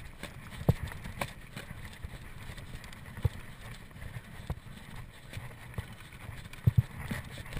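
Mountain bike rattling over rough trail: irregular clanks, clicks and low thumps from the frame and chain over a steady rush of tyre and wind noise.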